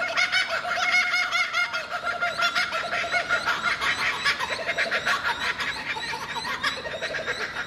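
Koala bellowing: a long, continuous run of rapid rasping pulses. The pitch drops lower about four seconds in.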